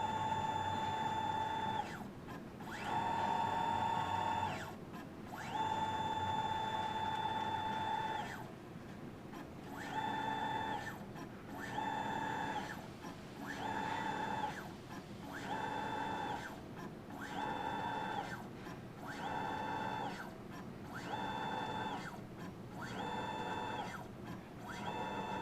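Electric motor of a stage drive whining in repeated runs, the strange motor noise of a stage that does not move. First come three runs of about two seconds, then about ten shorter runs of roughly a second each with brief pauses, each run starting and stopping with a short glide in pitch.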